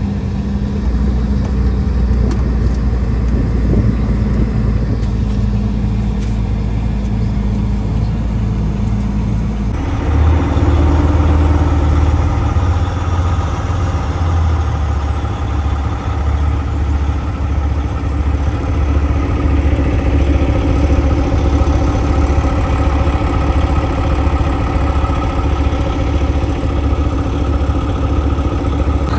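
Diesel log truck's engine heard from inside the cab, running steadily at low speed. About ten seconds in the sound changes abruptly to a louder, deeper, even throb, the engine ticking over slowly.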